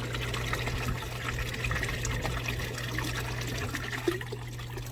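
Hot tub jets running: water churning and bubbling over a steady low hum from the pump.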